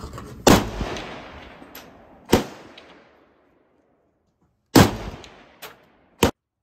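Kalashnikov assault rifle firing single aimed shots: four loud reports a second or two apart, each with a short ringing tail, plus a fainter report between the last two.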